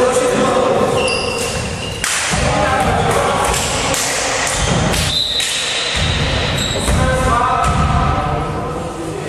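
A volleyball being served and played, several hollow thuds of hand on ball echoing around a sports hall, with players calling out between the hits.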